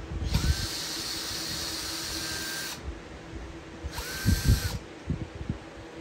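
Electric drill motor run twice, first for about two and a half seconds and then for about a second; each time it spins up quickly to a steady whine and then stops. Knocks from handling come around the runs.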